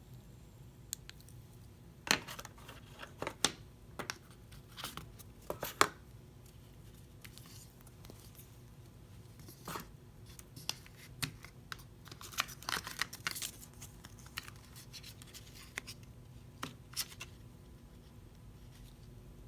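Unboxing packaging handled by hand, with irregular sharp crackles, tearing and clicks of plastic and paper. There is a cluster a couple of seconds in and a denser run about twelve seconds in.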